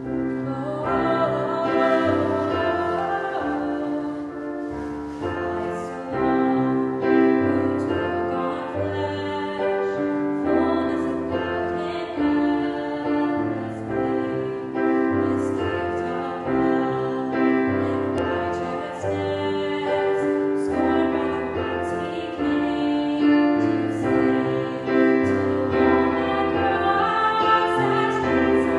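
Music during a worship service: singing over piano accompaniment, with sustained chords and a steady bass line.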